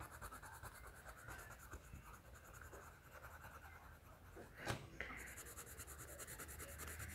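Coloured pencil shading on sketchbook paper: faint, rapid scratchy strokes, with one brief knock a little after halfway.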